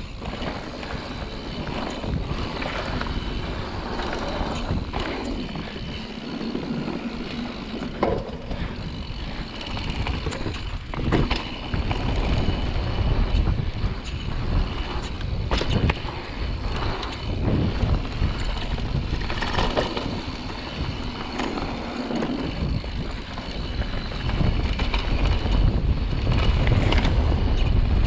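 Mountain bike descending a dirt trail: tyres running and skidding over dirt and rocks, with the bike rattling and knocking over bumps. Wind buffets the microphone throughout, with the low rumble growing louder in the last few seconds.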